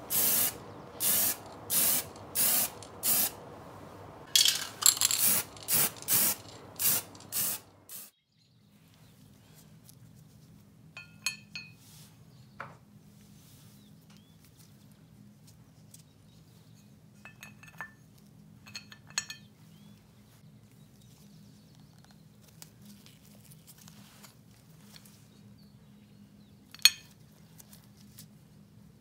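Aerosol spray-paint can fired in short hissing bursts, about eight quick sprays followed by a tighter cluster, stopping suddenly about eight seconds in. Then faint light clinks of small metal coin-bank parts being handled and fitted together over a low steady hum.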